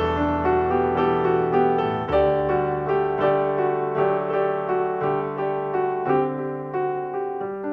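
Background piano music: a gentle melody of struck notes over sustained bass notes.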